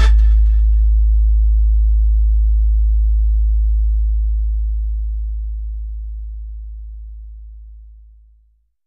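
A deep, steady sub-bass tone that starts suddenly and fades out slowly over about eight seconds, the kind of low bass note used to drive car-audio subwoofers.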